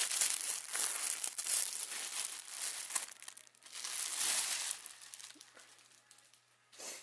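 Packaging crinkling and tearing as it is handled and opened, dense at first, a second burst a little past the middle, then dying down to faint rustles.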